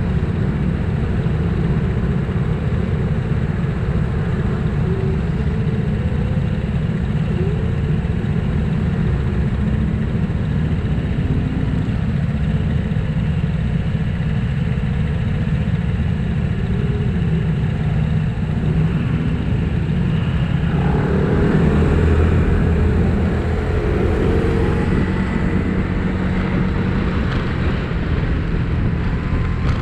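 Motor scooters idling at a red light with a steady low engine rumble. About two-thirds of the way through, the scooters pull away together and the engines rev up as they move off.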